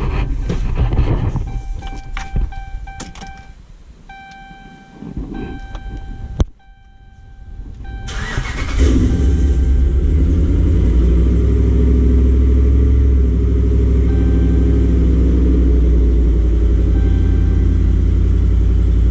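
Dodge Ram 1500 pickup being started from the cab. A dashboard chime pulses for a few seconds, then a click. About eight seconds in the engine cranks briefly, catches and settles into a steady idle. This is the first start with the fuel pump switched by an external relay bypass of the faulty TIPM relay, which shows the repair has worked.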